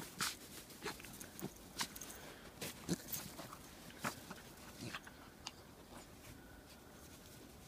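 Irregular crunching steps in deep snow, short crunches several to a second, thinning out after about six seconds.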